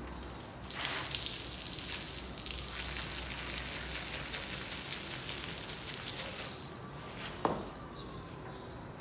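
Soapy water washing over a foam-covered rug on a tiled floor: a loud hiss with rapid fizzing crackle that starts about a second in and dies away after about six seconds. A single sharp click follows.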